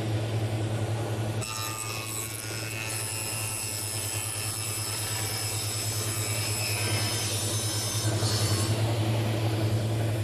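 Tilt arbour bench saw with a contra-rotating scoring saw running steadily, ripping a melamine-faced chipboard panel fed with a push stick. A higher cutting whine comes in about a second and a half in as the panel meets the blades and drops away again near the end, leaving the saw running free.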